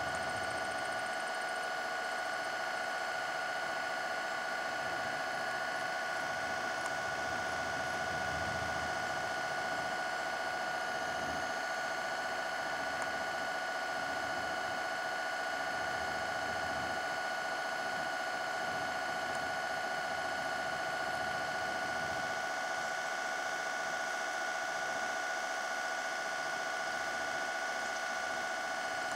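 Brushless electric motor of a scale model tugboat running at a constant speed under tow load: a steady high whine made of several fixed tones.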